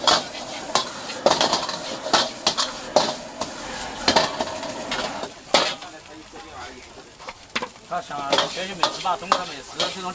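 Metal utensil clacking and scraping against a cooking pan over sizzling food, in irregular sharp strikes that thin out for a while about two-thirds of the way through.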